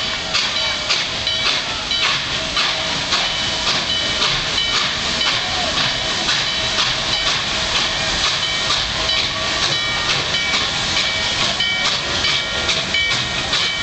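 Norfolk & Western Class J 4-8-4 steam locomotive No. 611 approaching slowly, steam hissing, with a steady run of sharp strikes, about two a second, that leave short ringing tones.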